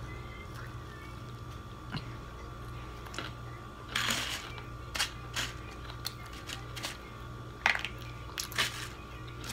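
Close-up eating sounds: chewing, a burst of crunching about four seconds in, then several light clicks and taps as fingers pick food from a plate, over a faint steady hum.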